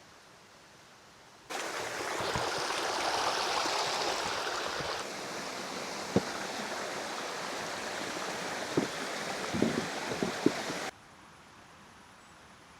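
Flowing water rushing steadily, like a stream, starting suddenly about a second and a half in and cutting off abruptly near the end, with a few sharp cracks or knocks in its second half.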